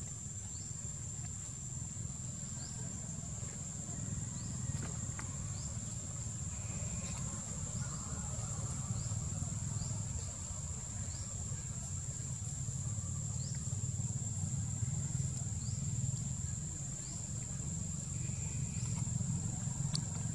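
A steady, high-pitched insect drone over a constant low rumble, with faint short chirps here and there.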